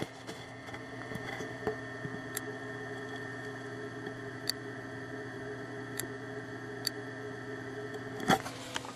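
Very slight, sharp ticks from a Landis & Gyr ultrasonic gas meter, heard with the microphone right against it over a steady background hum; they are the meter's ultrasonic sensing pulses, firing about a couple of times a second to measure the gas flow. A louder click comes near the end.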